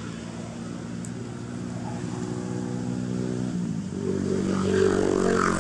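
Motor vehicle engine running steadily, growing louder as it comes closer, with its pitch shifting about four seconds in.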